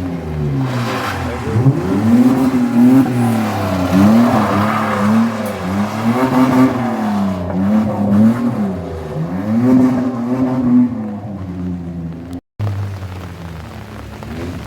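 Car engine being revved hard and repeatedly, its pitch rising and falling every second and a half to two seconds as the driver works the throttle to hold a slide, with tyre and road noise underneath. The sound cuts out completely for a moment about twelve seconds in.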